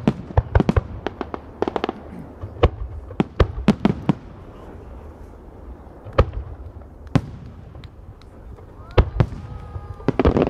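Aerial firework shells bursting in a rapid volley of sharp bangs over a low rumble. The bangs come thick and fast for the first few seconds, thin out to single reports, then crowd together again near the end.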